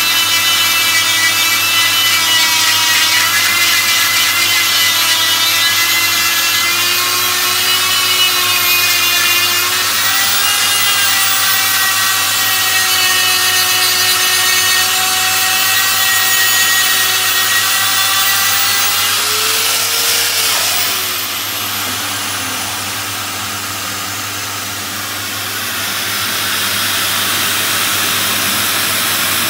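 Die grinder with a ball-shaped mounted grinding stone running at high speed, grinding out the cast-iron inlet port of a classic Mini A-series cylinder head: a steady high whine with the stone rasping on the metal. About twenty seconds in the pitch drops and the sound eases for a few seconds, then picks up again near the end.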